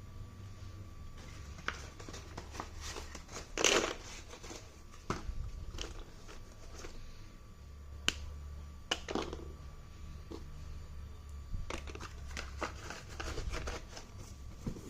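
Packaging and slate pencil boxes being handled: scattered light clicks and taps, with a brief louder rustle about four seconds in, over a low steady hum.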